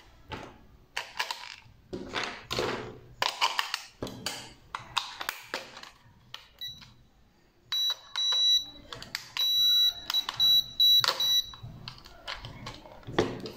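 Plastic clicks and rattles of a toy drone's remote controller being handled as its batteries go in and its cover closes, then the controller beeps as it is switched on: a run of high electronic beeps, a few long ones and then quicker short ones, over about four seconds.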